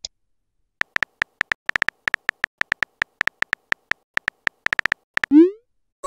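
Simulated phone-keyboard tap sounds: a fast, irregular run of short, high clicks as a text message is typed. They are followed, about five seconds in, by a short rising 'bloop' as the message is sent.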